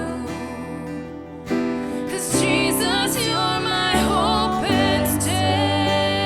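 Slow worship music with guitar and a wavering melody line, softening about a second in and then swelling back fuller.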